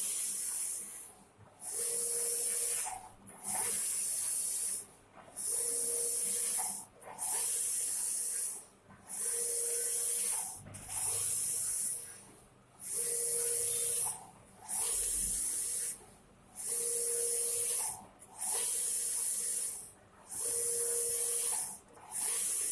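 Taimes large-format banner printer running, its print-head carriage sweeping back and forth about every two seconds. Each sweep is a steady high hiss, with a brief dip as the carriage reverses at the ends of its travel. A low hum rides along on every other sweep.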